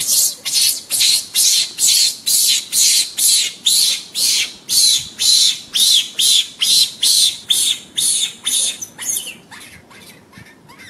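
An animal's harsh, shrill calls, repeated rapidly at about three a second and fading away over the last second or two.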